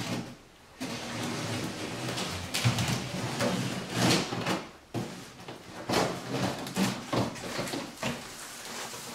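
Large cardboard shipping box being opened by hand: its flaps pulled apart and folded back in a run of sudden cardboard scrapes and rustles.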